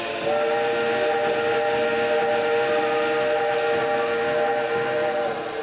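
Steam locomotive whistle blowing one long, steady blast of about five seconds, starting just after the beginning and tailing off near the end, over a hiss of steam.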